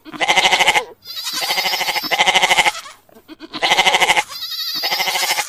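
Sheep bleating: about four long, quavering bleats one after another, with short pauses between them.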